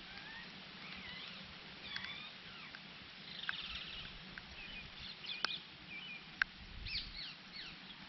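Several birds chirping and calling: short chirps and whistled notes, some sliding up or down in pitch, with a brief trill about three and a half seconds in and a few sharp ticks.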